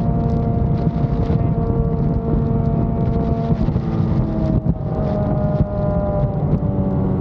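Yamaha FZ6 Fazer 600 inline-four engine running under way at steady revs. Its pitch shifts about three and a half seconds in and dips briefly a second later, as at a gear change, then falls slowly.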